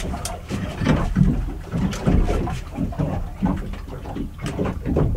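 Water slapping and lapping irregularly against the hull of a boat sitting in the water, over a low wind rumble.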